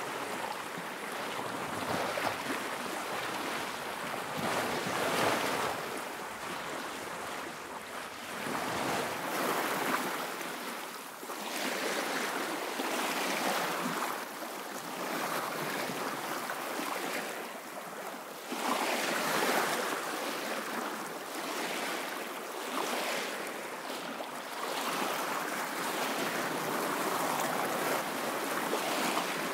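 Sea water rushing and splashing with wind noise, swelling and easing every second or two.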